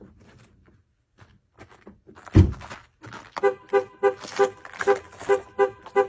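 A car door shuts with a single heavy thump. About a second later the car's horn starts honking in short two-note beeps, about three a second, and keeps going: the car alarm has been set off.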